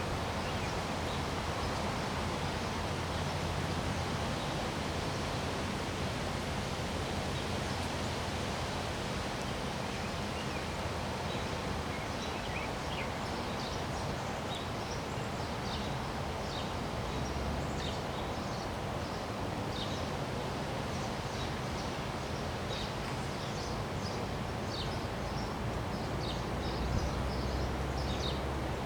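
Wind blowing, with leaves rustling and low buffeting on the microphone that swells now and then. From about halfway in, many short high chirps come through the wind.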